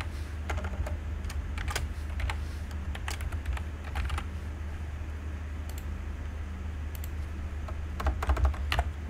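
Computer keyboard typing: scattered single keystroke clicks, with a quicker flurry near the end, over a steady low hum.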